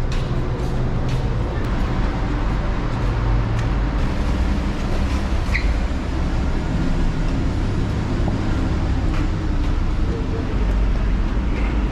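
Steady low rumble of vehicle and road noise, without a break.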